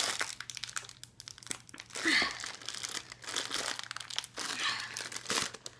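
Plastic sweet packet crinkling and crackling as it is handled and pulled open.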